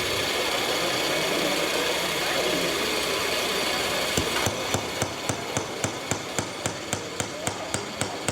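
A steady mechanical background, then from about four seconds in a regular knocking or tapping, about three strikes a second.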